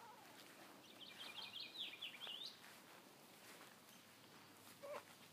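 A bird sings one short, faint phrase of quick chirping notes about a second in, over otherwise near-silent surroundings. A brief faint squeak follows near the end.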